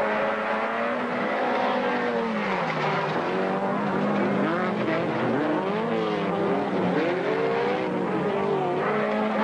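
Engines of several autocross race cars revving hard on a dirt track, their notes rising and falling and overlapping as they accelerate and lift off through the turns.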